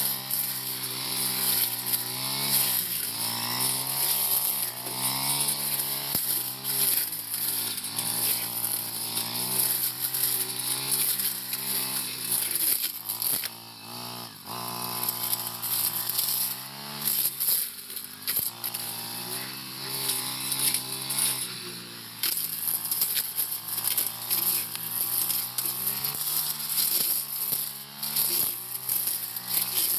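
Four-stroke brush cutter engine running at high speed while cutting thick grass and brush. Its pitch keeps sagging and recovering as the load changes. The engine eases off briefly about halfway through.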